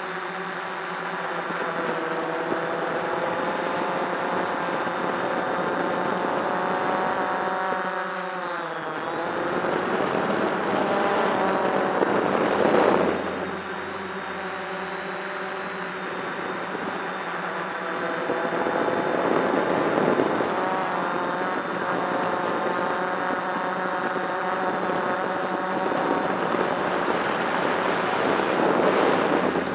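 Whine of an F550 hexacopter's six motors and propellers, heard from the camera on its frame. The pitch dips sharply about eight seconds in, then shifts up and down with throttle. Bursts of wind noise on the microphone swell three times.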